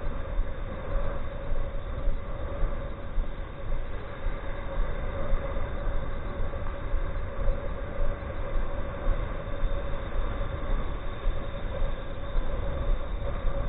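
Wind buffeting the microphone in gusts over the rush of surf, with the steady hum of a Swellpro Splash Drone 4 quadcopter's propellers flying overhead.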